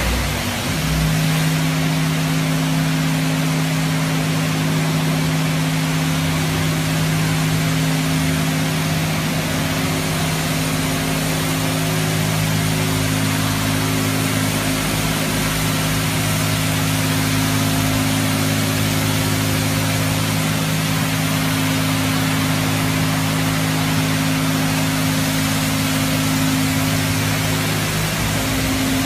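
Leisuwash 360 touchless car wash machine spraying high-pressure water over a car: a steady hiss of spray over the even hum of the machine's pump motor.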